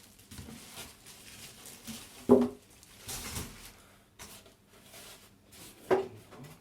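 Handling of a PC case and its packaging: intermittent rustling of plastic and foam, with two sharp, briefly ringing knocks, the louder about two seconds in and the other near the end.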